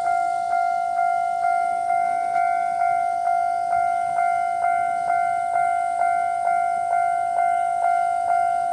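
Japanese level crossing warning bell ringing its regular 'kan-kan' alarm, a steady ding repeating about twice a second, each ring fading before the next.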